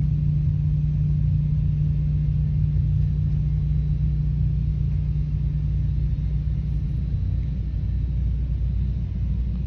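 A steady low mechanical hum with a constant low tone, unchanging throughout.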